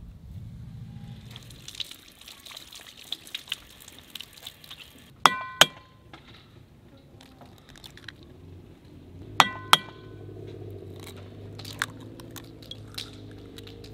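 Eggs cracked against a white ceramic bowl: two sharp taps about five seconds in and two more about four seconds later, the bowl ringing briefly at each tap.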